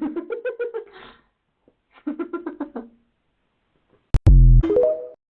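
A man snoring in rapid rattling pulses, twice; then a sharp slap, and at once a loud short cry rising in pitch.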